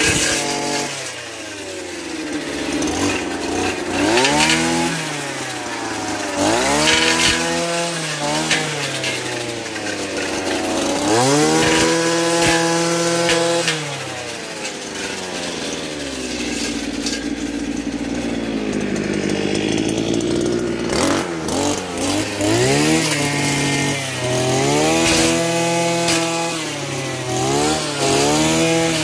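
Petrol brush cutter engine revving up and down again and again as the cutting head is worked into thick brush. The pitch rises with each burst of throttle and drops back between bursts, about eight times, with the longest high run near the middle.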